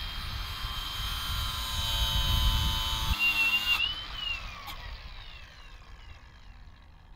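Cordless power saw cutting into the wooden sideboards of a truck's stake bed, stopping abruptly about three seconds in. Its motor then spins down with a falling whine over the next couple of seconds.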